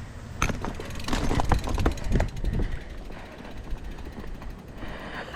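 Downhill mountain bike clattering over rough trail: a run of knocks and rattles with heavy low rumble from about half a second to three seconds in, easing afterwards. Under it, the rear freehub ratchet ticks quickly as the bike coasts, with wind on the microphone.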